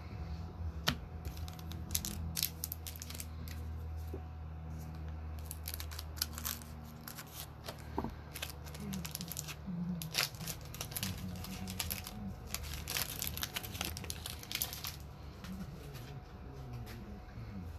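Trading card pack wrappers being torn open and crinkled by hand, a run of irregular crackles and rustles.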